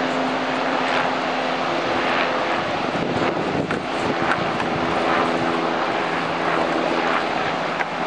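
An engine running steadily, a low multi-toned hum under a loud rushing noise.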